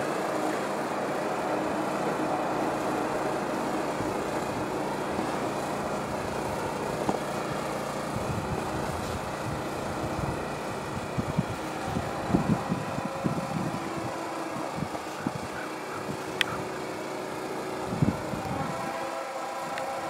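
Distant freight train approaching: the steady drone of its GE diesel locomotives, with a few low irregular rumbles through the middle and one sharp click late on.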